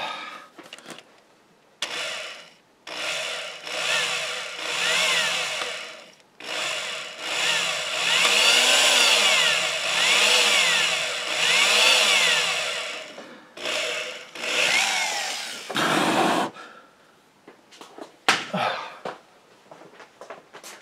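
Handheld power drill running in several bursts, its speed rising and falling, as the bit bores down the centre of a broken screw sunk in the playfield wood, making a pilot hole for unscrewing it. A few short clicks follow near the end.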